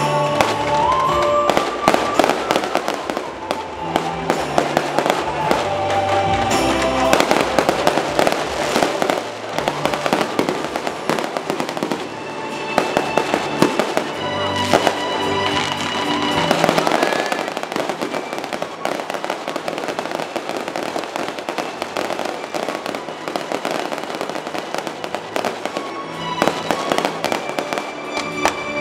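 Aerial fireworks bursting and crackling in rapid, continuous succession, over music playing throughout.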